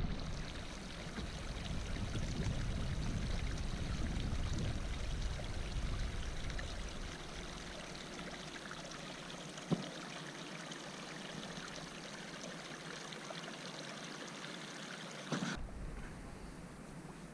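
A small mountain stream running steadily. Wind rumbles on the microphone for the first several seconds, and there is one short knock about ten seconds in.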